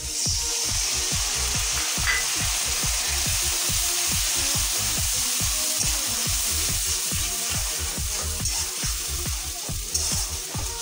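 Tomato paste sizzling as it hits hot oil and fried onions in a kadai and is stirred in with a spatula. Background music with a steady beat plays throughout.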